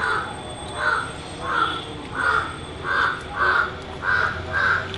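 A crow cawing over and over, about eight short harsh caws at an even pace of roughly one every two-thirds of a second.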